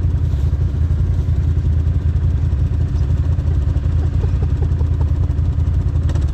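ATV engine running steadily close by, a low, even drone with no revving.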